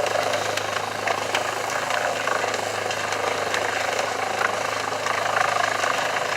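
A large engine running steadily at a constant pitch, with scattered short clicks and knocks over it.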